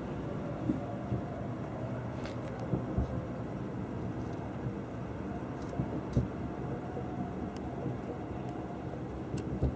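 Distant aerial fireworks bursting: a handful of irregularly spaced bangs and cracks over a steady low rumble of echoing explosions.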